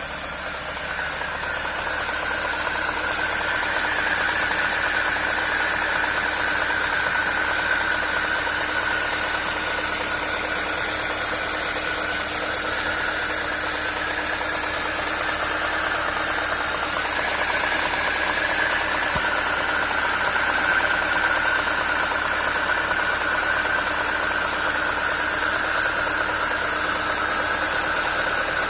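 BMW N62B44 4.4-litre V8 running steadily with a knocking noise from the engine, which the owner traced to a failing vacuum pump.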